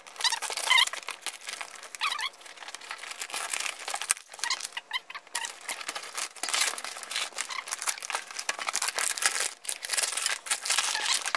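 Packing tape and cardboard being torn and ripped by hand as a large taped shipping box is opened, an irregular run of tearing, crinkling and rustling.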